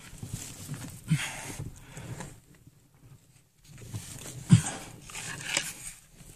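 A person breathing hard from exertion in a cramped, hot crawlspace: several loud, rough breaths about a second apart, each starting with a short low grunt, and a pause of about a second and a half in the middle.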